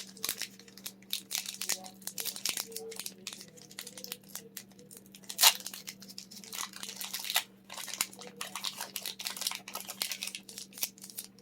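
Foil Pokémon Sword and Shield booster pack being torn open and crinkled: a run of crackling rips and rustles, with one louder click about five and a half seconds in.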